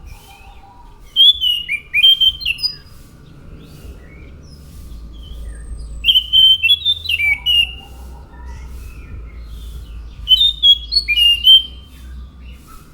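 Anis macan thrush singing three rapid phrases of short, sliding whistled notes, a few seconds apart, over a faint steady background hum.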